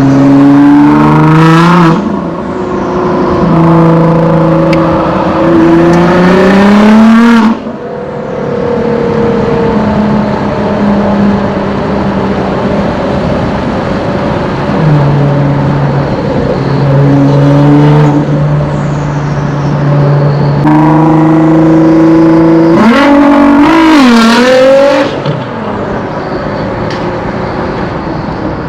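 Nissan GT-R R35's twin-turbo V6 with aftermarket exhaust and bolt-ons pulling hard: the engine note climbs in pitch through two full-throttle runs, each cut off suddenly when the throttle closes with a short burst of hiss, and runs at a steadier lower note between them.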